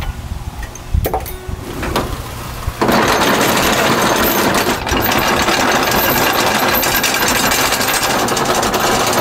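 Anchor chain free-spooling off a windlass: after a few knocks, the chain starts running out about three seconds in with a loud, continuous rapid rattle.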